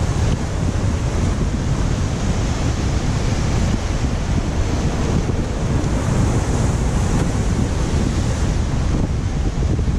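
Steady wind noise buffeting the microphone over the rush of surf churning against the jetty below.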